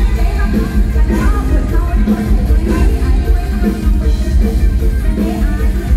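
Live mor lam band music played loud through a stage PA, with a heavy, steady bass.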